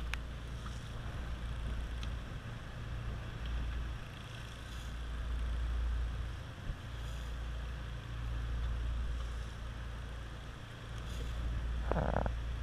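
A boat's engine running steadily with a low hum, and a short, louder sound near the end.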